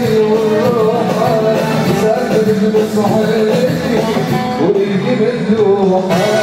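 Live band music: a male singer's voice over electric guitar and band accompaniment, playing on without a break.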